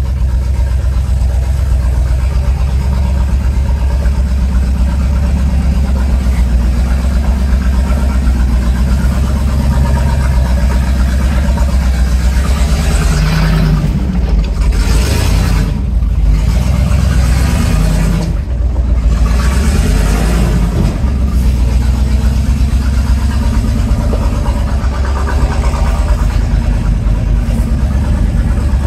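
Chevrolet pickup's engine running with a steady, deep rumble as the truck drives over a rocky trail; the sound shifts briefly a little before halfway through.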